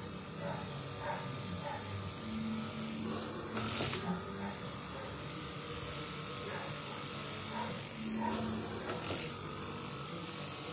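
Steady buzz of a small electric tool at a workbench, with two brief bursts of noise, about four seconds in and again near nine seconds.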